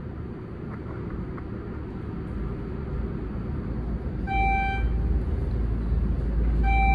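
Elevator car in motion, its low ride rumble building steadily as it travels up. Two short electronic floor-passing chimes sound about two and a half seconds apart in the second half.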